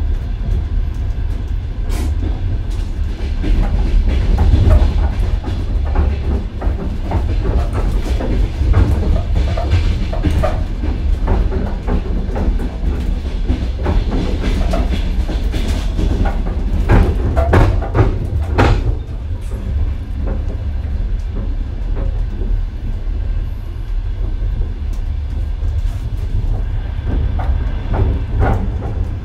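Old passenger train carriage running along the track, heard from inside: a heavy steady rumble with irregular clattering knocks from the wheels and the carriage. The knocking comes thickest about two-thirds of the way through.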